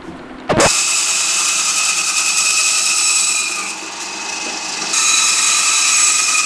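Electric meat band saw running and cutting through a beef leg (marrow) bone: a big noise of steady high whine with a gritty hiss. It starts abruptly about half a second in, eases slightly in the middle and grows louder again as the blade bites through the bone.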